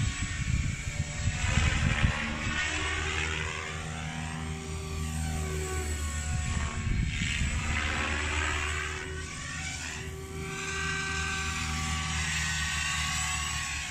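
Radio-controlled model aircraft flying around with a steady electric motor drone, its sound swelling and fading over several passes. It is loudest about a second or two in.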